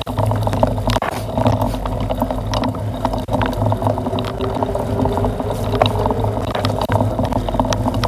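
Mountain bike rolling fast over a bumpy, leaf-strewn dirt trail: steady rumble of tyre and wind noise, with frequent sharp knocks and rattles as the bike jolts over bumps.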